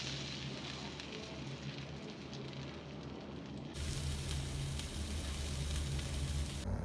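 Rava-coated pomfret shallow frying in hot oil, sizzling steadily over a low hum. About four seconds in the sizzle abruptly turns brighter and hissier.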